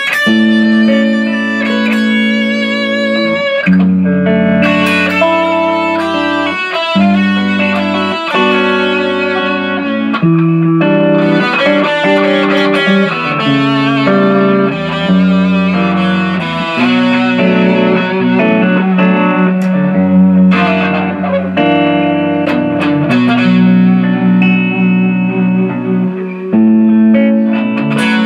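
Electric guitar fitted with a Floyd Rose FRX tremolo bridge, played amplified: a run of chords and single-note lines, each ringing about a second before the next. It is a test play of the newly installed bridge.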